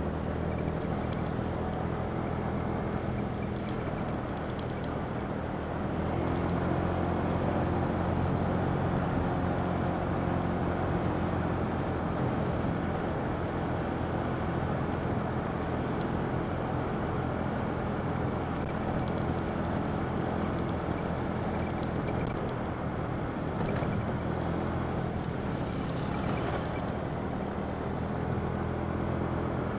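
A vehicle's engine running steadily while driving, with road and air noise; it gets a little louder about six seconds in.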